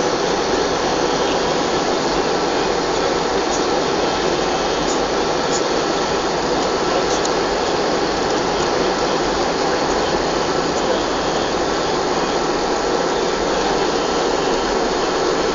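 Airbus A320 cabin noise as the aircraft moves along the ground after landing: a steady rush of jet engines and airflow, heard from inside the cabin, with no rise or fall.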